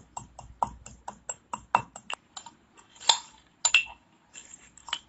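Steel pestle pounding dry-roasted cumin seeds in a stainless steel mortar: quick metallic clinks, about six a second for the first two seconds. Then come a few louder, ringing strikes.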